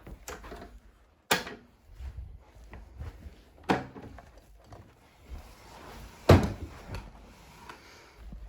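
Three sharp knocks with faint rustling handling noise between them: one about a second in, one near four seconds, and the loudest about six seconds in.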